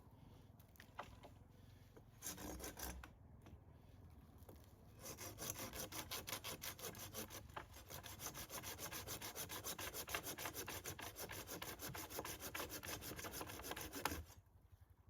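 A hand tool scraping on wood: a short burst about two seconds in, then fast, even rasping strokes, several a second, for about nine seconds before stopping abruptly.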